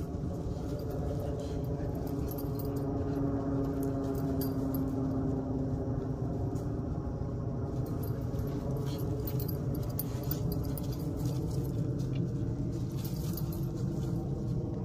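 Steady mechanical hum of a running motor or engine, even in level throughout, with one of its tones sliding slightly lower a few seconds in.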